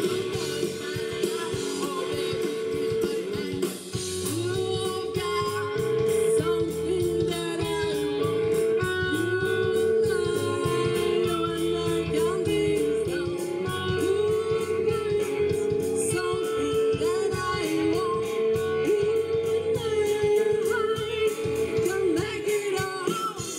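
A live band playing, with a woman singing lead over electric guitar and congas.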